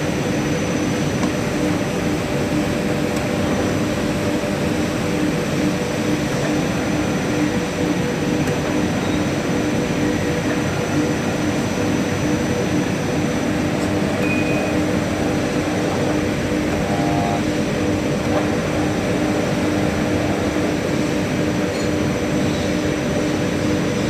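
Hydraulic power unit of a plastic-pipe butt welding machine running: the electric motor and pump give a steady hum with noise that holds an even level throughout.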